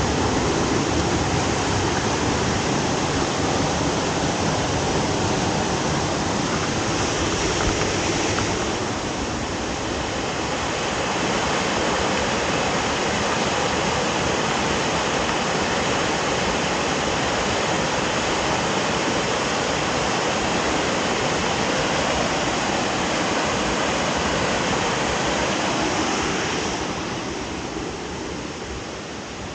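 Waterfall pouring: a steady rushing of falling water that dips briefly about nine seconds in and grows quieter near the end.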